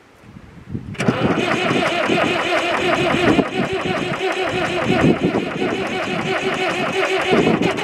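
David Brown 996 tractor's diesel engine cranking on the starter motor, cutting in suddenly about a second in and turning over steadily with a fast, even rhythm. The engine has stood unused for about ten years.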